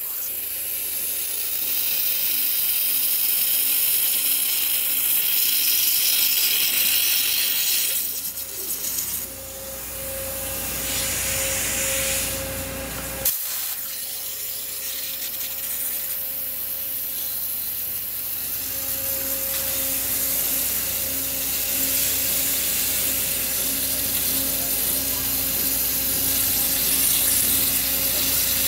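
Flow IFB 6012 CNC abrasive waterjet cutting steel plate: a loud, steady hiss from the ultra-high-pressure jet, with steady low tones from the machine underneath. The hiss dips briefly about a third of the way in, and there is a single sharp click about halfway through.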